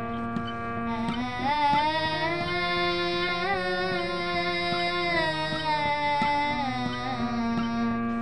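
A female voice sings a slow, unmetered raga alap over a sustained harmonium. The voice comes in about a second in, holds long notes with gliding ornaments, and drops away near the end while the harmonium keeps sounding.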